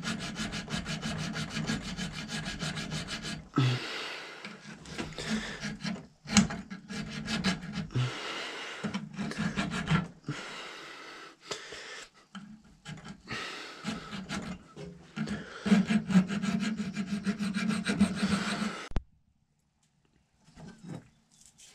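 Hand file scraping back and forth on a metal barrel lug set in a muzzleloader barrel's dovetail, filing the lug's sides flush with the barrel. The strokes come in runs broken by short pauses and stop a couple of seconds before the end.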